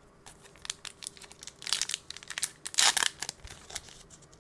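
Foil wrapper of an Upper Deck hockey card pack crinkling in the hands and being torn open, in irregular crackly rustles, loudest about two and three seconds in.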